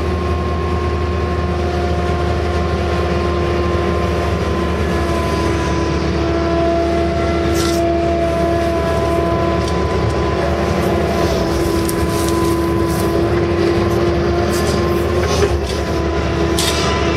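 Case CX160 excavator's diesel engine running steadily, heard from inside the cab, a constant drone with a steady whine over it. A few short clicks come about halfway through and again near the end.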